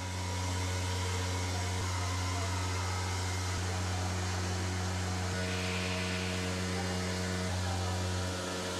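Water-cooled spindle of a CNC stone machining centre grinding a recessed drainer into a granite or quartz worktop: a steady hum over a hiss, easing slightly near the end.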